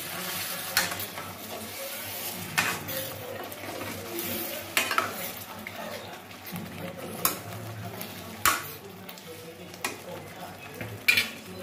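Metal spoon stirring paneer cubes through thick, simmering tomato gravy in a metal kadhai, with a sharp clank on the pan every second or two over a steady sizzle.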